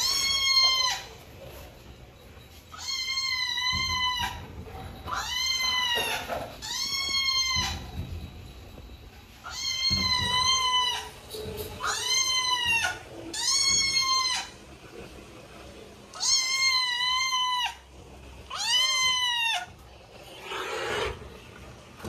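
Cat meows repeated over and over, about nine calls each about a second long, every one rising and then falling in pitch in much the same shape; they stop near the end.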